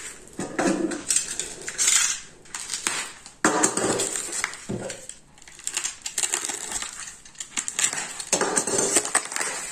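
Sheet of foamed polyethylene rustling as it is unwound from a glass jar of jam, with irregular knocks and clinks of the jar being handled and one sharper knock about three and a half seconds in.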